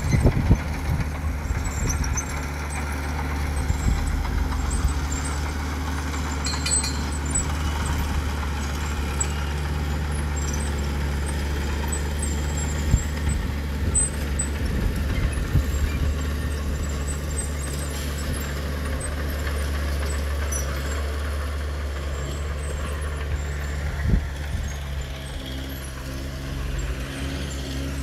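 Heavy diesel engines of road-building machinery, a crawler bulldozer and a truck, running with a steady low hum. A few faint high clicks and squeaks come about six to seven seconds in.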